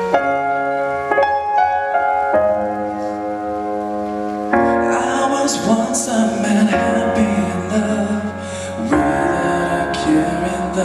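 Instrumental intro of a pop ballad: sustained keyboard chords that change about every second, with a fuller band accompaniment coming in about four and a half seconds in.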